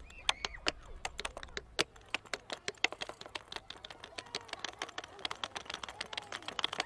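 Tap dancing: the metal taps on the shoes click in quick, uneven rhythms, the strikes coming thicker and faster from about halfway through.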